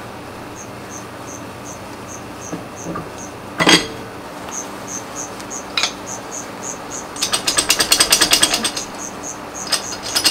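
Ratchet wrench clicking in two quick runs, about seven and ten seconds in, while the cylinder head is being fitted back onto the engine; a single metallic clunk comes near four seconds in. Crickets chirp steadily, about three times a second.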